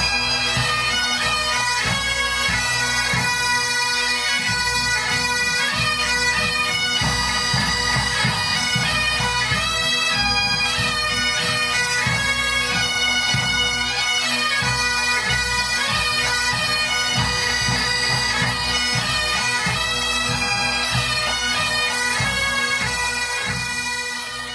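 Pipe band music: Great Highland bagpipes playing a melody over their steady drones, with drum beats underneath. It fades out at the end.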